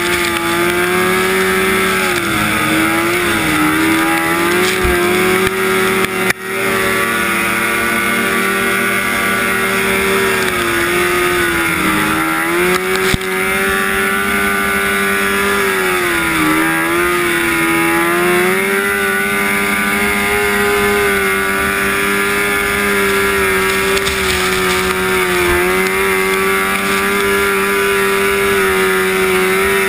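1974 Rupp Nitro 340 snowmobile's two-stroke engine running at high revs, heard from on board. The note holds steady and dips in pitch briefly a few times as the throttle is eased, then climbs back.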